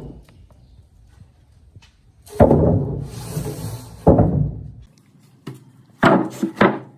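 Heavy wooden pieces knocking, four loud knocks with a scraping rub between the first two.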